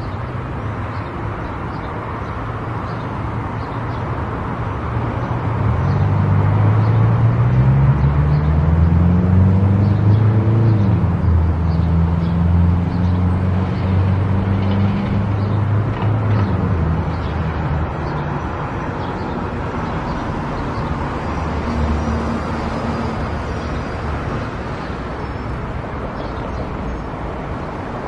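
Car driving on a road: steady tyre and road noise with the engine underneath. From about five seconds in the engine note grows louder and rises in pitch as the car speeds up, then holds steady before easing back.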